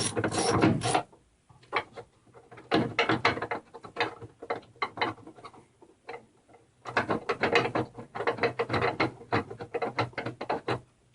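Ratchet wrench clicking in quick runs as bolts holding a furnace draft inducer motor are backed out. There is a run in the first second, scattered clicks for a few seconds, then a longer fast run from about seven seconds in.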